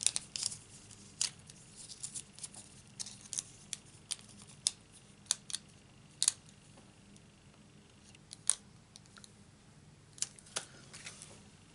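Scattered sharp little clicks and crackles of paper and plastic being handled as a glue dot is peeled from its roll.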